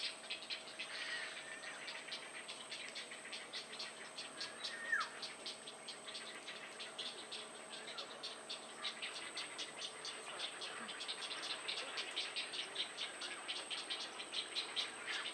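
Wildlife ambience: a steady chorus of rapid pulsing calls at about five pulses a second, over a steady high whine. A single short falling whistle, likely a bird, comes about five seconds in.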